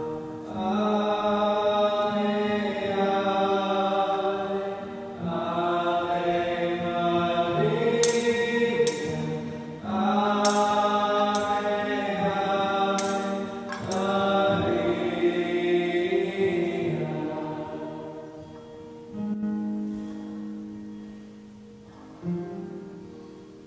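Voices singing a hymn in a reverberant church with instrumental accompaniment, in long held notes. The singing ends about three quarters of the way through, leaving a few quieter notes.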